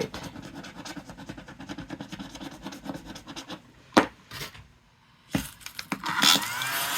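Paper rubbing and scratching as bills and envelopes are handled, followed by a sharp tap about four seconds in and another knock a little later.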